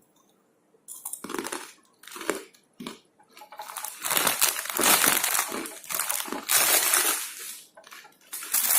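Plastic snack packaging crinkling and rustling as it is handled: a few short rustles, then a few seconds of continuous crackling that dies away near the end.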